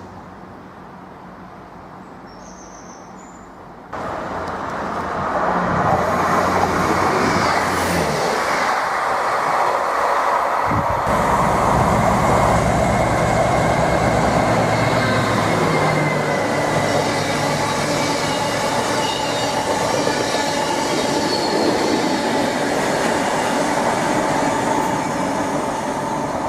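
A train running past at close range, its wheels squealing with thin high whines over the rumble of the wheels and a low engine drone. It comes in suddenly about four seconds in, after a quieter stretch with a short bird chirp.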